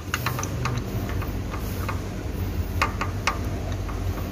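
Light metallic clicks of hand tools working on the engine's spark plugs, a quick run of them near the start and three more about three seconds in, over a steady low hum.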